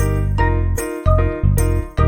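Background music: a bright, tinkling melody over a steady bass line.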